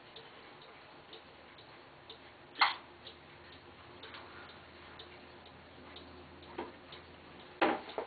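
Paragon rolling ball clock running: faint small clicks of its chrome steel balls on the wooden tracks, with a sharp loud click about two and a half seconds in and another near the end, over a faint steady hum.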